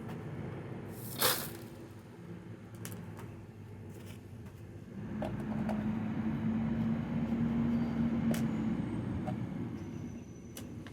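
A sharp knock about a second in, then a passing motor vehicle: a low rumble with a steady engine hum swells from about halfway, holds for a few seconds and fades.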